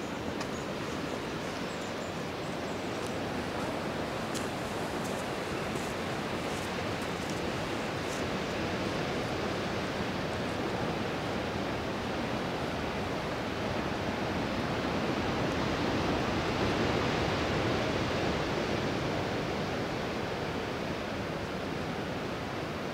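Distant ocean surf at the base of the coastal cliffs: a steady rushing noise that swells for a few seconds past the middle.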